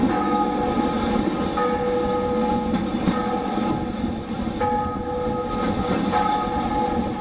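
Historic Lisbon tram (Eléctrico 28) running along its rails, heard from inside the car: a steady rumbling rattle with a whining tone that comes and goes in stretches of a second or two.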